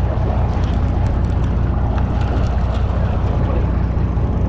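A sport-fishing boat's engine running steadily with a constant low hum, under wind and water noise, with a few light ticks.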